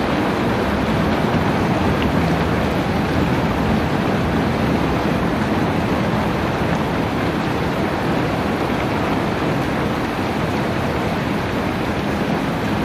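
Rain falling steadily: an even, unbroken hiss with no single drops or other events standing out.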